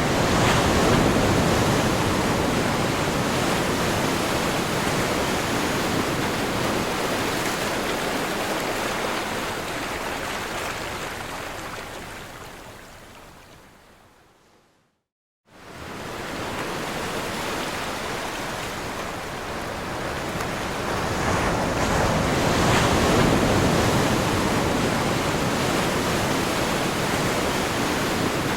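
Ocean surf breaking on a shore, a steady rushing noise that swells with each wave. About halfway through it fades out to a second of complete silence and then fades back in, the seam where the recording loops.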